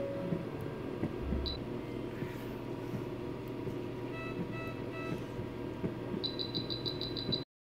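Electronic beeps from a surgical patient monitor over a steady room hum. About halfway through come three soft multi-tone beeps, then near the end a quick run of about eight high beeps before the sound cuts off abruptly.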